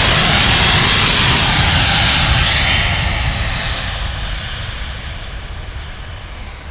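Airbus A380's four Rolls-Royce Trent 900 turbofans at takeoff thrust on the takeoff roll: loud jet noise whose whine falls in pitch as the aircraft passes, then fading steadily as it moves away down the runway.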